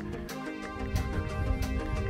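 Background music with a steady beat; a deep bass line comes in at the start.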